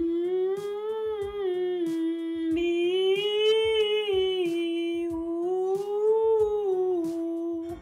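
A woman's alto voice sings a warm-up vocalise in one unbroken breath, largely hummed, the pitch rising and falling twice. Soft instrumental accompaniment notes sound beneath it.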